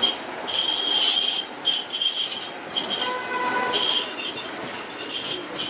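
Passenger train running, heard from inside the carriage: a steady running rumble with high metal-on-metal squeals from the steel wheels on the rails that come and go.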